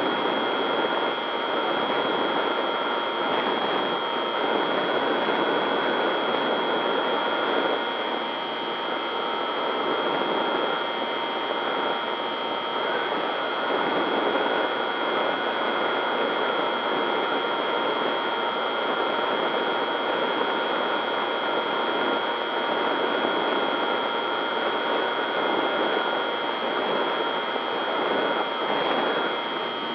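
RC model plane's motor and propeller heard from an onboard camera in flight: a steady high whine over a constant rush of air noise.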